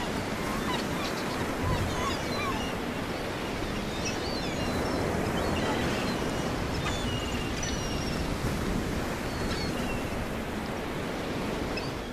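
Ocean surf washing steadily, with seagulls calling in short, scattered cries over it.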